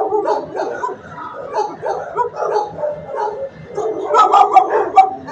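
Several shelter dogs in the kennel runs barking and yipping over one another without a break, loudest about four to five seconds in.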